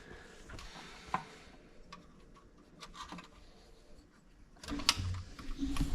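Hand tools and metal parts being handled: scattered light clicks and knocks, one sharper click about a second in, then a louder bout of clatter and shuffling with a low rumble near the end.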